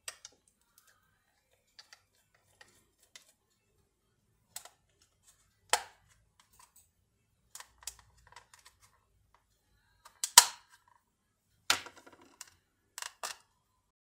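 Scattered plastic clicks and snaps from a cordless phone handset's case being pried apart along its seam, the loudest a little past ten seconds and again near twelve seconds as the shell's clips let go.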